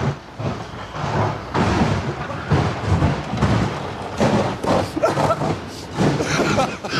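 A man laughing helplessly in wheezing, breathless gasps, with no words between them.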